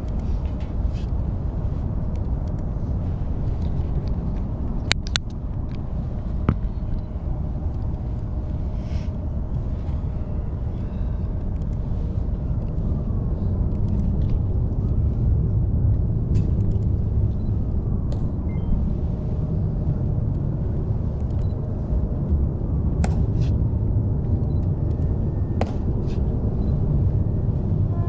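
Steady low outdoor rumble with no voices, growing a little louder about halfway through, with a few sharp clicks scattered through it.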